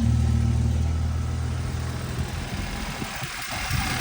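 BMW N20 2.0-litre turbocharged four-cylinder engine idling steadily on a freshly replaced timing chain. Its hum dips a little about three seconds in.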